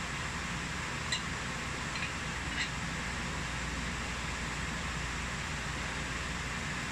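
Three light clinks of a metal spoon against a ceramic plate, about one, two and two and a half seconds in, over a steady background hiss.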